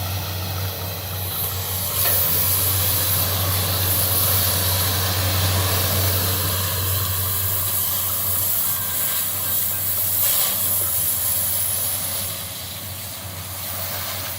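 Pressure washer running: a steady low hum from its motor and pump under the loud hiss of the water jet spraying the steel of an outdoor wood furnace. The spray gets louder about two seconds in.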